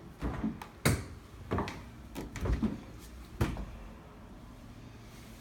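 Doors being handled, a closet door and then a refrigerator door, giving about half a dozen knocks and clunks over the first three and a half seconds before it goes quieter.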